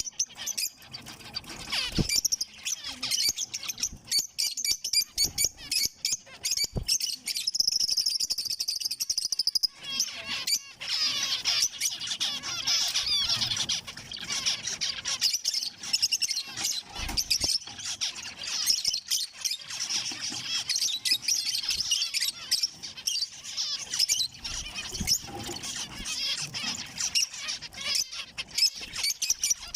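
A flock of zebra finches calling at once: dense, rapid, high-pitched chirps and chatter that never let up, with a few short thumps.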